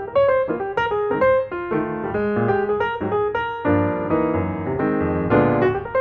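Background piano music: a light tune of quick successive notes with chords beneath.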